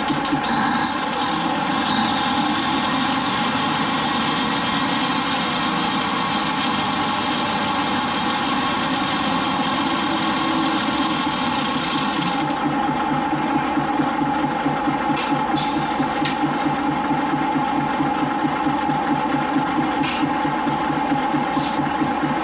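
The engine of an Industrial Brownhoist 250-ton railroad wrecking crane running steadily inside its machinery house, with an even, rapid pulsing beat. A high hiss stops suddenly about halfway through, and a few sharp clicks come near the end.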